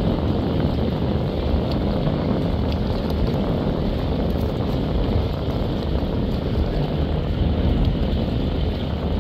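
Wind buffeting the microphone: a steady low rumbling noise that flickers irregularly in the lows.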